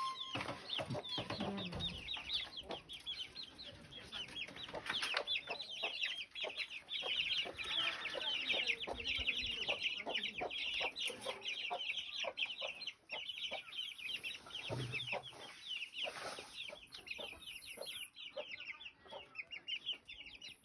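Many birds chirping at once, a dense, continuous stream of quick, high chirps that thins out near the end.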